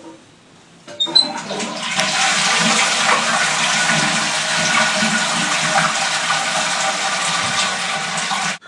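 Toilet flushing after its cistern push button is pressed: a loud rush of water starts about a second in, runs steadily, and cuts off abruptly near the end.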